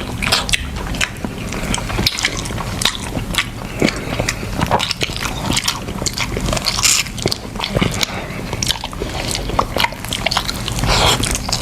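Close-up eating sounds: a person biting and chewing crab balls, with many short, sharp crunches and clicks throughout.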